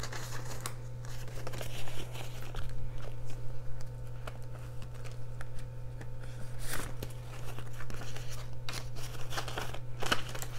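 Paper dollar bills rustling and crinkling as they are pulled out of a clear plastic binder pocket and leafed through by hand, with a few sharper snaps. A steady low hum runs underneath.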